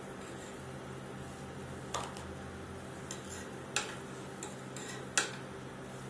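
Metal spatula clicking and tapping against the steel plate of a rolled ice cream pan as the finished rolls are lifted off, a few sharp clicks with the loudest near the end. Under them runs the steady hum of the ice pan machine's refrigeration unit.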